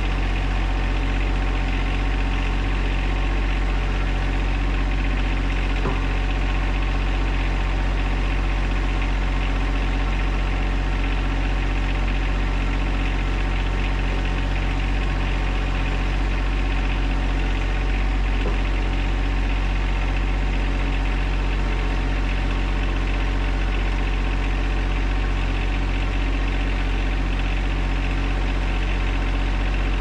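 John Deere 1025R compact tractor's three-cylinder diesel engine running steadily, with no change in speed.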